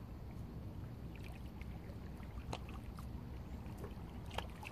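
Calm sea lapping against shoreline rocks over a steady low rumble, with a few short sharp clicks, the loudest near the end.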